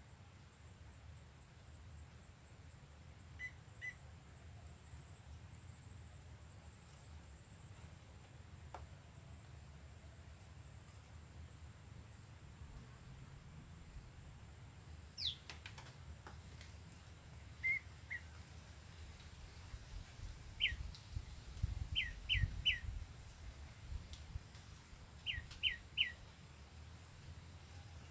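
A prenjak (a small prinia) calling in short, quick down-slurred chirps, mostly in sets of three, which come more often in the last third. A steady high insect buzz runs underneath.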